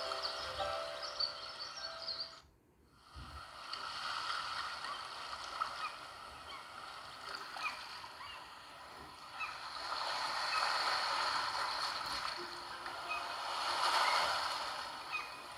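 Honor 9 Lite ringtone of water-like rushing and gurgling noise with a few faint short tones. A brief dead gap about two and a half seconds in marks the switch from one ringtone to the next.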